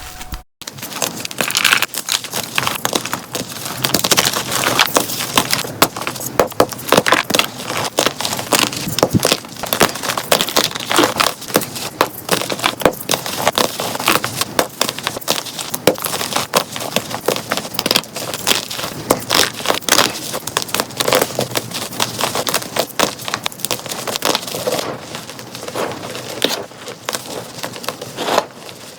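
Dyed gym chalk blocks being crushed and crumbled, a dense run of crunching and crackling. The crunching starts after a brief silent break just after the start.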